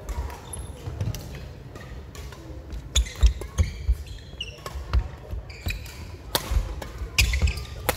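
Badminton doubles rally on a wooden sports-hall floor: sharp racket hits on the shuttlecock and thudding footfalls with short shoe squeaks, echoing in the large hall, the hits coming thick and fast from about three seconds in.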